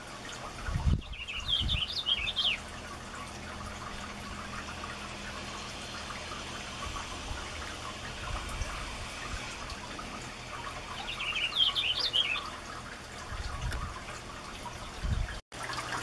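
Two short warbled songs of a male purple finch, about a second in and again about eleven seconds in, over steady background noise.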